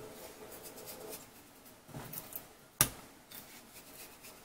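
Fingers pinching spice mix from a small ceramic bowl and rubbing it onto raw chicken breast fillets in a glass bowl: faint rubbing and scraping, with a small tap about two seconds in and a sharp click a little under three seconds in.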